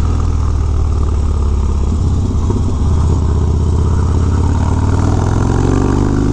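Harley-Davidson Dyna's V-twin engine running through a Bassani Road Rage 3 exhaust with the baffle wrap pulled out, pulling away from a stop and accelerating, its pitch rising over the last couple of seconds.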